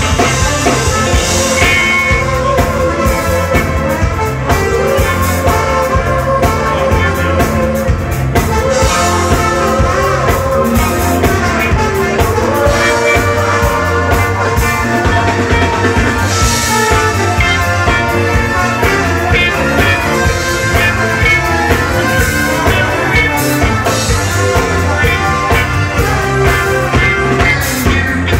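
Live band playing loud, steady, dance-beat music: electric bass, electric guitar, drum kit, congas and a horn section led by saxophone.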